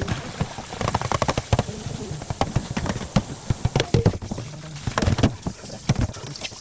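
Dishes and utensils knocking and clattering in irregular short clicks during washing up at a sink.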